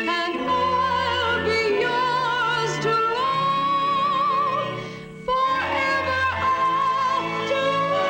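Music with long, wavering high notes held over sustained low notes; it drops away briefly about five seconds in, then comes back.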